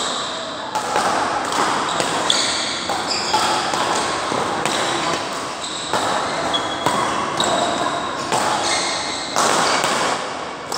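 Badminton rally: rackets striking the shuttlecock again and again, with short high squeaks of shoes on the court, in a large echoing hall.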